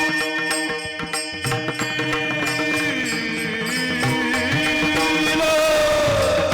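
Marathi Varkari kirtan music: harmonium notes held under fast rhythmic percussion strikes, with a singer's voice sliding in about five and a half seconds in.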